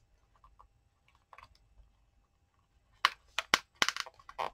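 Small handling sounds of craft materials on a work surface: faint ticks, then a quick run of sharp taps and clicks starting about three seconds in.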